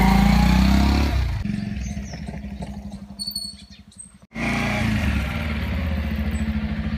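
Bajaj Pulsar motorcycle's single-cylinder engine running and fading away over a few seconds as it rides off, with a few bird chirps in the quieter stretch. After an abrupt cut about four seconds in, the engine is heard running steadily up close again.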